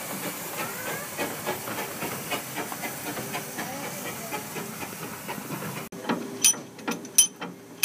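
Narrow-gauge steam locomotive hissing steam steadily. About six seconds in, the hiss cuts off abruptly and sharp metallic clanks follow, about one and a half a second.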